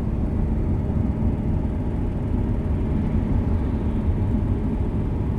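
Chevrolet C7 Corvette's 6.2 L LT1 V8 engine and road noise while driving: a steady low drone with no clearly separate clicks.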